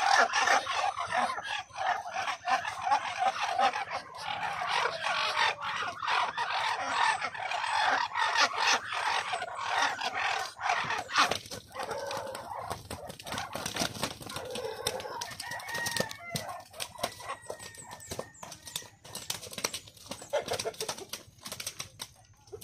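Farmyard fowl clucking and calling, a busy overlapping flock, louder in the first half and quieter after about halfway.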